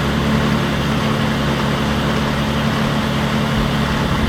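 Tractor engine running at a steady speed, driving a livestock feed mixer: a constant low hum that does not change.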